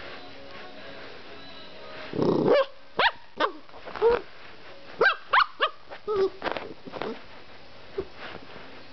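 Cocker spaniel puppy barking at the camera: a string of about ten short, sharp barks, starting about two seconds in.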